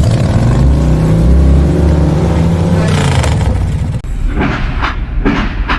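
Motorcycle engine revving, its pitch rising and then falling over a couple of seconds, followed by several shorter revs.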